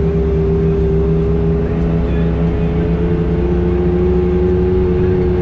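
Side-by-side UTV engine running steadily at an easy cruise on a dirt trail, heard from the cab, its pitch easing slightly lower about halfway through.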